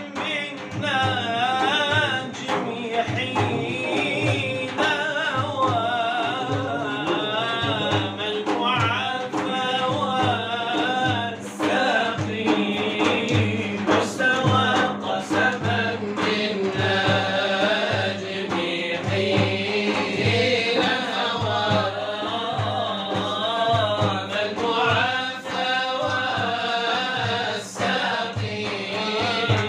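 Male voices singing an Arabic devotional chant (inshad) in long, wavering melismatic lines over a steady low beat.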